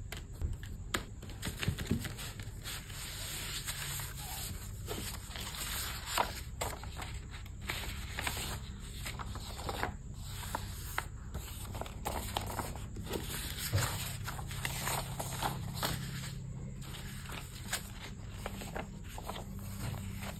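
Hands working with craft materials: irregular scraping, rustling and small ticks and taps, over a low steady hum.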